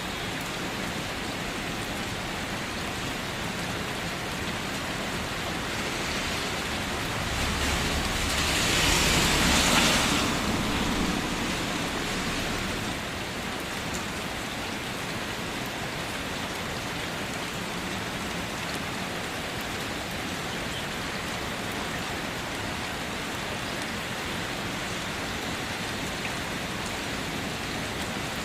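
Steady rain pattering on a car's roof and body. About a third of the way in it swells louder for a few seconds, with a low rumble under it, then settles back to an even patter.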